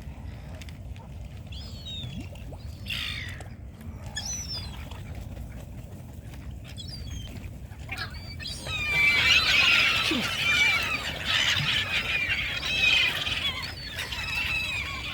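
A crowd of hungry waterbirds calling while being fed seed: a few scattered calls at first, then from about halfway through a loud, dense clamour of many overlapping squawks and squeals as the flock crowds in for the food. A low steady rumble runs underneath.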